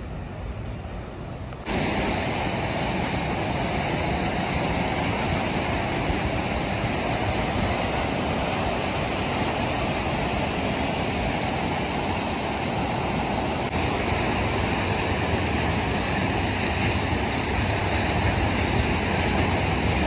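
Ocean surf breaking on a sandy beach: a steady rush of waves mixed with wind, jumping abruptly louder about two seconds in and then holding level.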